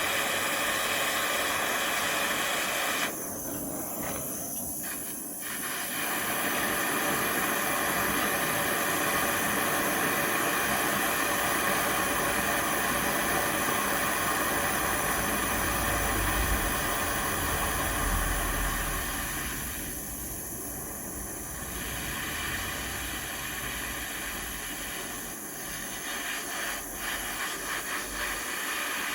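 Gas torch flame hissing steadily as it heats a steel steering rod. The hiss thins out briefly twice and flutters near the end.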